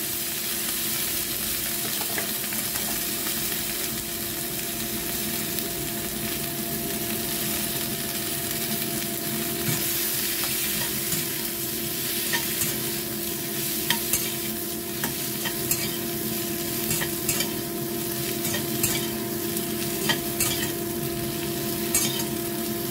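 Chopped bell peppers sizzling in hot oil in a wok while a metal slotted spatula stir-fries them; from about ten seconds in, the spatula clicks and scrapes against the pan repeatedly. A steady low hum runs underneath.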